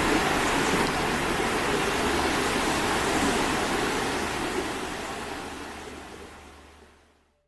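Small mountain stream running over rocks in little cascades, a steady rush of water that fades away over the last three seconds.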